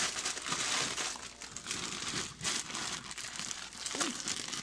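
A plastic bag of frozen mixed vegetables crinkling in an irregular run as it is handled and tipped to pour into a pot.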